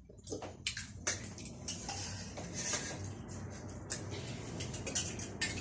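Spoons clinking and scraping against dishes in short, irregular clicks while people eat chatpate.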